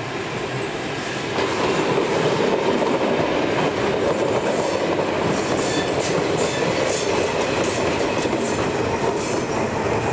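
A diesel-hauled passenger train running close past: coaches rolling by with their wheels clacking over the rail joints, then a ČD Cargo class 743 diesel locomotive at the rear. The sound grows louder about a second and a half in and stays loud, with a run of sharp wheel clicks through the second half.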